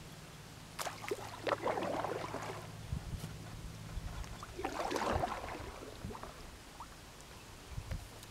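Canoe paddle working through shallow water, with two spells of splashing and gurgling: one about a second in and another about five seconds in.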